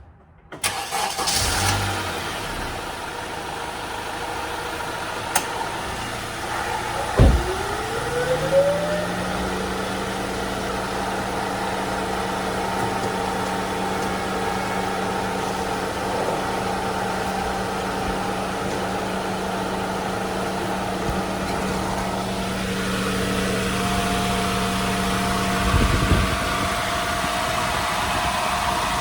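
Honda Civic four-cylinder engine starting up about half a second in and settling into a steady idle, with a short rising tone and a knock around seven seconds and another knock near the end. It is being run right after an oil change so the new filter and drain plug can be checked for leaks.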